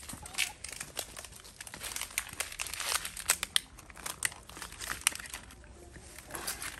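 Plastic crinkling and crackling in quick sharp clicks as dry cat food is handled and set out in clear plastic trays, busiest in the middle.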